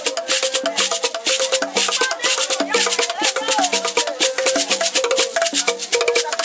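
Beaded gourd rattle (shegbureh, shekere-type) shaken in a fast, steady rhythm, with a wooden drum struck with sticks and voices singing along: Sierra Leonean folk percussion music.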